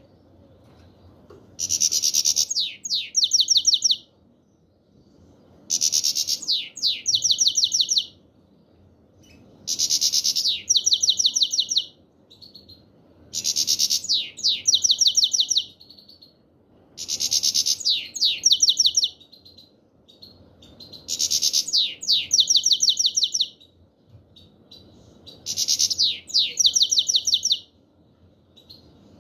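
Black-headed European goldfinch singing its 'chir-chir' phrase over and over: seven near-identical phrases about every four seconds, each a scratchy opening note, two quick falling notes and then a fast trill.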